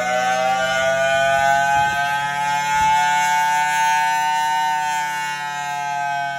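Federal Signal Thunderbolt outdoor tornado siren sounding one steady wailing tone. Its pitch climbs gently over the first few seconds and eases down near the end.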